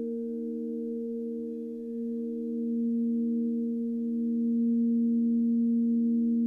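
Crystal singing bowls played with a mallet, several bowls ringing together in long, overlapping, steady tones, one of them wavering slowly. The sound swells louder about two and a half seconds in and again about five seconds in.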